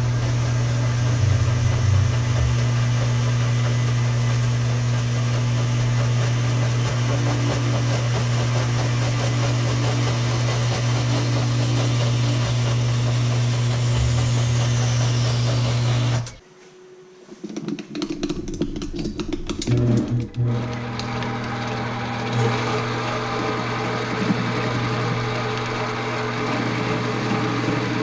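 Metal-cutting bandsaw running steadily through steel stock for axle spacers. About two-thirds of the way through it stops abruptly, and after a few knocks and clatter a machine starts again and runs steadily.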